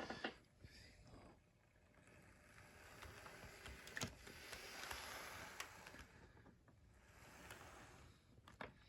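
Faint whir of an HO-scale model diesel locomotive running slowly on its track, motor and wheels swelling a few seconds in and then fading, with a few light clicks.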